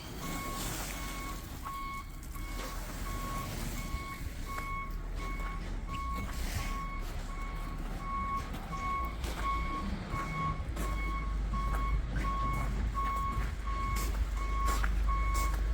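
A vehicle's back-up alarm beeping at one pitch in an even, steady series, over the low rumble of a truck engine that grows louder about eleven seconds in.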